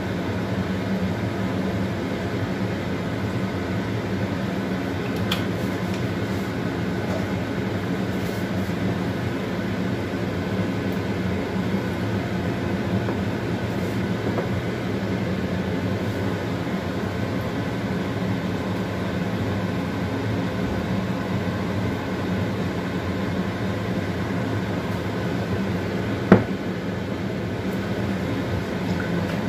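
Steady mechanical hum made of several even tones over a low hiss, with one sharp knock about 26 seconds in.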